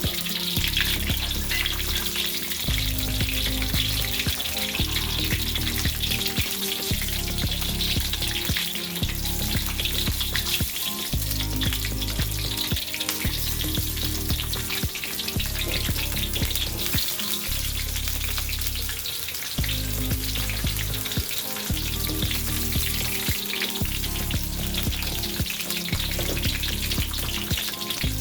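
Food frying in hot oil in a pan, a steady crackling sizzle.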